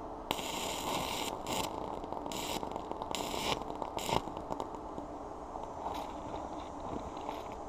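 Amico arc welder laying a weld bead on the trike's steel frame: the arc crackles and sputters in several short runs, the first and longest near the start, and stops about four seconds in.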